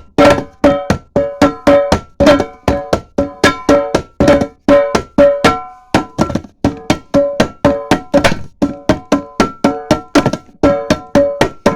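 Coffee cans drummed in a quick, steady rhythm, about four hits a second, each hit ringing briefly with a hollow metallic tone.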